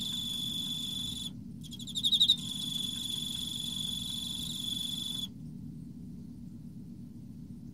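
Emma field cricket stridulating: a steady high-pitched trill that breaks off briefly after about a second, returns with a short, louder burst of pulsed chirps, runs on steadily, and stops about five seconds in.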